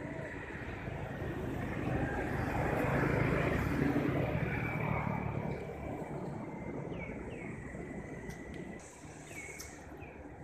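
A motor vehicle passing: a low engine rumble swells for a few seconds and then fades. A few short, downward-sliding bird chirps follow near the end.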